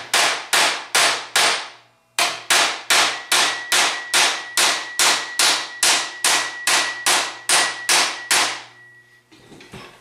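Body hammer striking a thin sheet-steel patch panel clamped over a hammer form, tightening the radius of its formed edge. It is a steady run of sharp blows, about three a second, with a short pause about two seconds in and a faint ring from the steel under the later blows. The hammering stops about a second before the end, leaving a few faint knocks.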